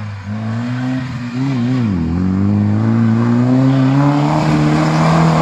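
UAZ off-roader's engine revving hard while driving through mud and sand. The pitch wavers, drops sharply about two seconds in, then climbs steadily as the engine winds up.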